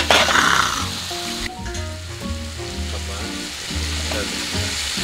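Hanwoo beef sizzling as it cooks, with a louder burst of sizzling in the first half second, over background music with a steady bass line.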